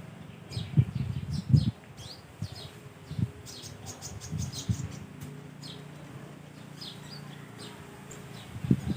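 Small birds chirping rapidly in many short, quick notes, with a few low thumps in the first few seconds.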